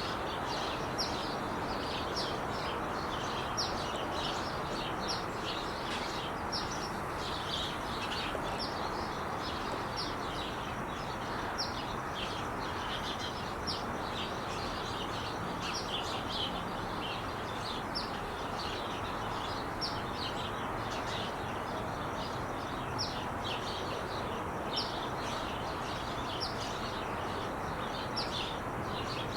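Steady rush of freeway traffic with small birds chirping over it: many short, high chirps, about two a second.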